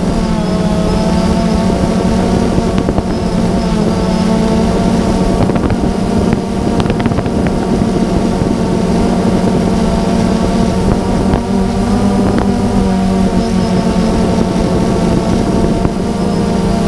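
Multirotor drone's motors and propellers buzzing steadily, heard from the camera on board: a loud hum with a ladder of higher tones over a rush of wind.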